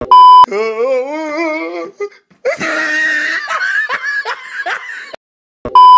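A loud, clipped 1 kHz test-card tone beeps for about half a second over TV colour bars, then a person laughs in two bouts, the second more breathy. A second short tone beep comes near the end.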